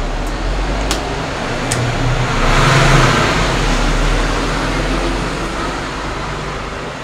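A motor vehicle passes on the street, growing louder to a peak about three seconds in and then slowly fading. Two short sharp clicks come about a second and two seconds in.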